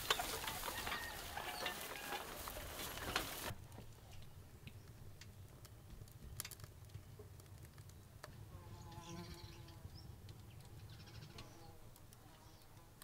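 Rustling through long grass with metal clinks from a wheeled planting implement, which cuts off suddenly about three seconds in. Two faint calls from a farm animal follow, each about a second long, one midway and one near the end.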